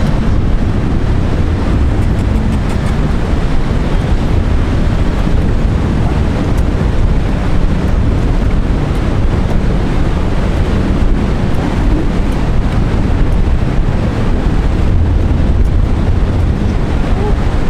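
Steady wind rumbling on the microphone, with the wash of ocean surf beneath it.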